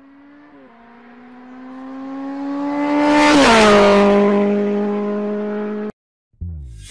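Sound effect of a fast vehicle passing by. The engine note swells, drops sharply in pitch as it passes about three seconds in, holds the lower note, then cuts off abruptly near the end.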